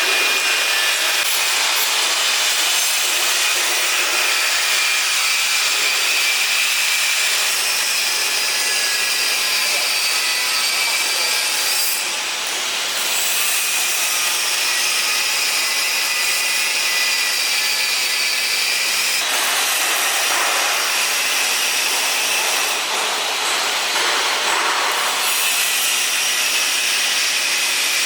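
Metalworking on a stainless steel sculpture frame: a steady, harsh, abrasive hiss with a faint wavering whine, dipping briefly twice.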